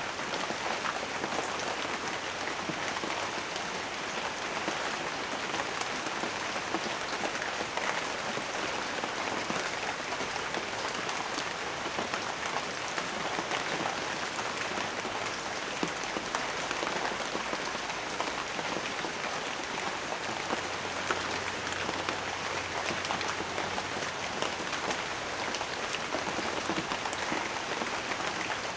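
Steady rain falling, a dense even patter of many drops hitting a surface.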